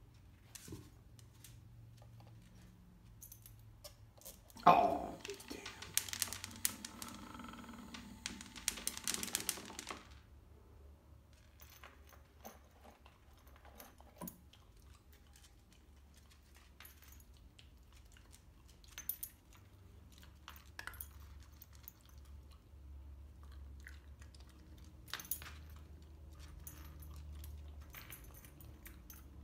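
A loud sudden sound with falling pitch about five seconds in, then about five seconds of dense rattling and clicking as dry food comes out of a button-triggered dog feeder, followed by scattered clicks and crunches of a dog eating kibble.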